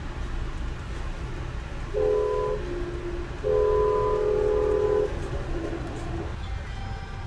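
Train horn sounding twice from the locomotive, heard inside a moving passenger coach over the steady rumble of the train on the rails: a short blast about two seconds in, then a longer blast of about a second and a half.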